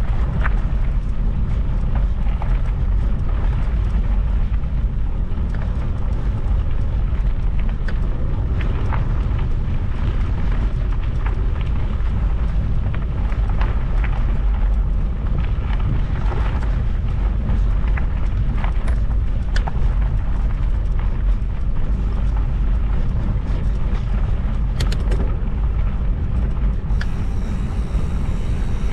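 Steady low rumble of wind buffeting the microphone, with scattered light clicks and rattles.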